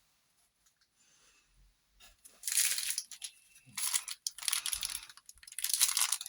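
Packaging being crinkled and torn open by hand, in three rustling bursts after a quiet first couple of seconds.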